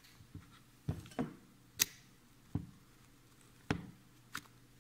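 Light handling of an opened cordless drill's plastic housing and internal parts: about six separate sharp clicks and knocks, the sharpest about two seconds in.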